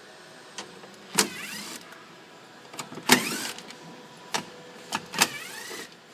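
Cordless driver with a 5.5 mm socket whirring in three short bursts, its motor whine rising in pitch each time it spins up, as it backs out the screws holding the factory door speaker. A few light clicks come between the bursts.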